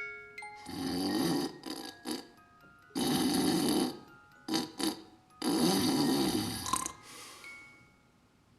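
Cartoon snoring sound effect: three long, loud snores about two and a half seconds apart, with short snorts between them, over light chiming music.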